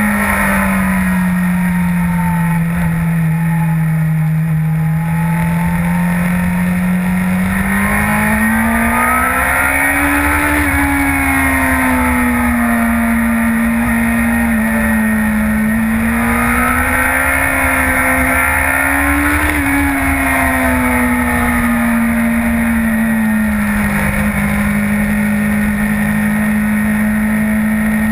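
2011 Yamaha R1's crossplane inline-four engine at riding speed, heard from on board. Its note drops and holds low for a few seconds, climbs to a peak about ten seconds in, dips, climbs again near twenty seconds, then falls back and runs steady.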